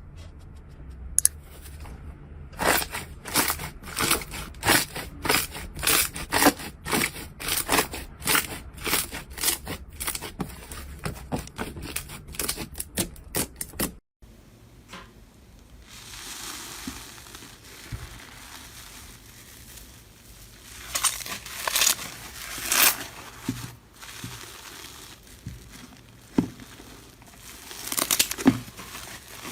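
Hands working slime, making rapid sharp crackling snaps about two to three a second for the first half. After a cut, there is a stretch of softer rustling and then a few louder crackling squeezes near the end.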